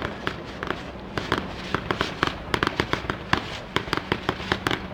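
Fireworks going off: a rapid, irregular string of sharp bangs and crackles, several a second.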